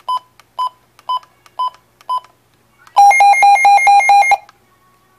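Midland WR120 weather radio: five short beeps about half a second apart as its buttons are pressed, then a loud pulsing alert tone, about five pulses a second, for about a second and a half as the radio runs its siren test.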